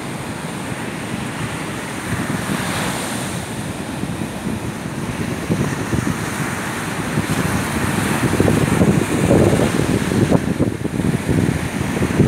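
Ocean surf breaking and washing up the beach, a steady rush, with wind buffeting the microphone in gusts that grow stronger in the second half.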